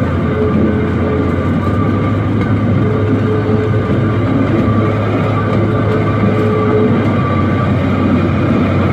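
Small open-car ride train running steadily along its track, with a constant low drone and the rolling noise of the cars.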